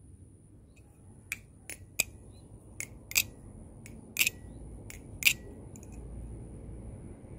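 Butterfly knife (a Krake Raken V2 clone balisong) being flipped, its handles and blade clicking against each other in about seven sharp clicks at uneven intervals.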